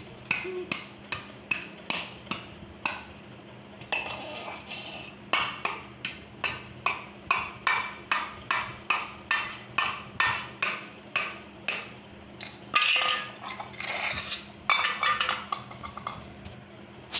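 Metal pots, dishes and utensils being banged together in a steady, uneven beat of about two sharp clanging strikes a second, with brief pauses and a few denser bursts of clattering.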